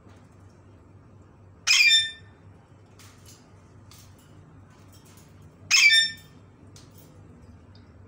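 Alexandrine parakeet giving two loud, harsh screeching calls about four seconds apart, with a few faint short chirps between them.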